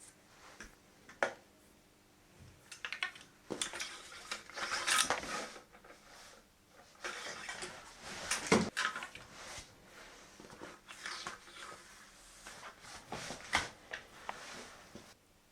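Handling sounds of rifle cleaning: irregular clicks, knocks and short scrapes of tools and rifle parts being picked up and worked, with the loudest knock about halfway through.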